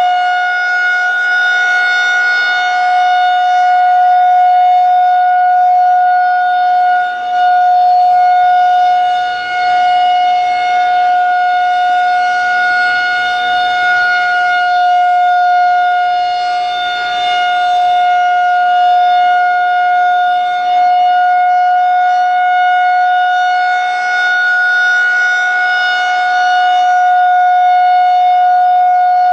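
Federal Signal 2001-130 electromechanical outdoor warning siren sounding a steady alert: one loud, unchanging tone with slight swells in loudness and two brief dips.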